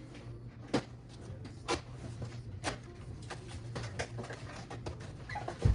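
Packing material and a cardboard box being handled during unpacking: scattered rustling with a few sharp knocks about a second apart and a dull thump near the end, over a steady low hum.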